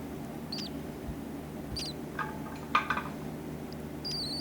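Unweaned parrot chick giving thin, high begging squeaks: a couple of short ones, then a longer wavering squeal near the end. These are hunger calls for food.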